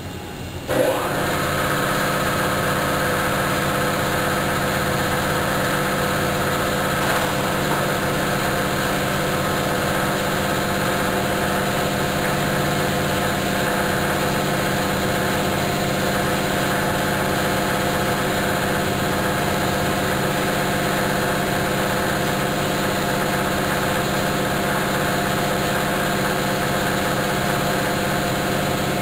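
Laser cutting machine switching on about a second in, then running with a steady mechanical hum.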